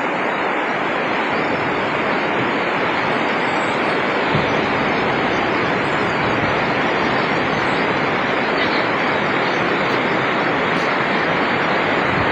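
Steady, dense rushing of heavy rain.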